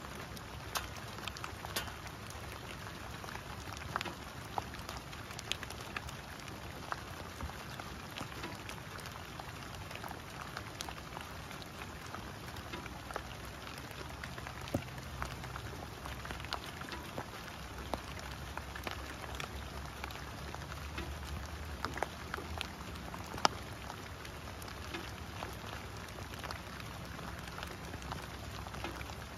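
Steady rain falling on fallen leaves and grass, an even hiss dotted with frequent sharp ticks of single drops landing close by. A faint low rumble sits underneath and swells now and then.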